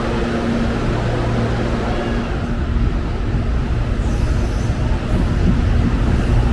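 Electric commuter train running through the station: a steady low rumble with a hum, growing louder near the end.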